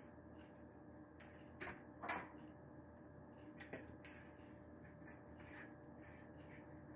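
Near silence: a few faint taps and rustles of hands handling parsley and a plastic blender jar on a counter, the clearest about two seconds in, over a faint steady hum.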